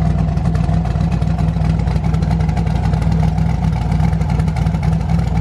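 Turbocharged LS V8 idling steadily and loudly while it warms up.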